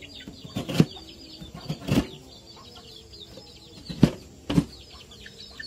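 A knife knocking against a cutting board as it slices through a block of palm sugar: a few separate sharp strikes several seconds apart. Birds chirp faintly behind.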